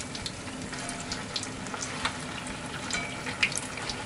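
Tofu-and-mountain-yam fake unagi on nori deep-frying in hot oil: a steady sizzle with scattered crackling pops.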